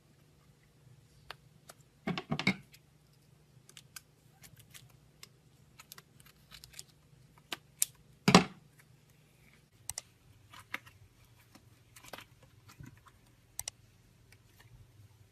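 Slime being squeezed and worked by hand, giving scattered sharp clicks and pops, with a louder crackling squish about two seconds in and another about eight seconds in.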